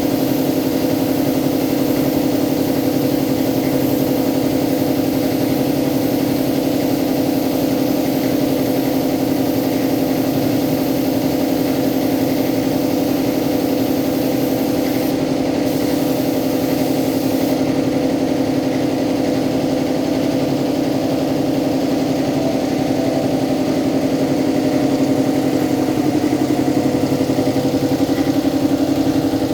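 Air compressor running steadily with an even mechanical hum. A faint high hiss over it cuts out about seventeen seconds in.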